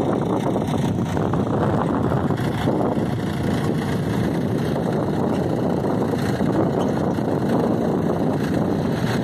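Tractor engine running steadily while it pulls a stone picker working through loose soil, a continuous dense mechanical noise that holds level throughout.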